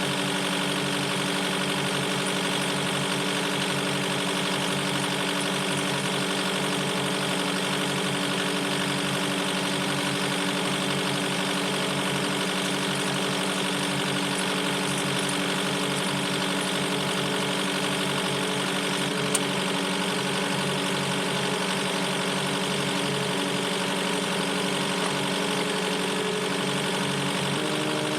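Skid steer loader engine running steadily, its pitch stepping up slightly near the end, with one sharp click about 19 seconds in.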